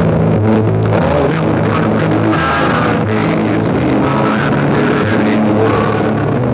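Rock music with guitar and bass playing at a steady loudness.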